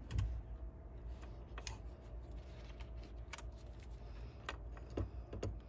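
Scattered sharp plastic clicks and small handling noises from a rear-lamp wiring plug connector being worked shut by hand, about five clicks spread over several seconds.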